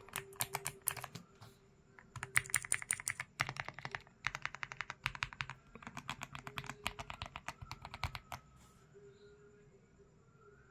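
Typing on a Zuoya GMK67 mechanical keyboard: rapid runs of keystrokes in several bursts with short pauses between, stopping about eight seconds in.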